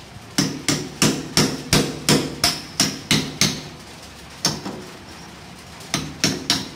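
Hand hammer tapping on a steel shaft and gear, about three strikes a second. A run of about ten ringing metal-on-metal knocks, a pause with a single strike, then three more near the end.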